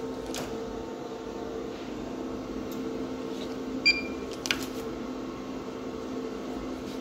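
Multifunction printer humming steadily while it is slow to respond to a print job, with a few light clicks and one short electronic beep about four seconds in.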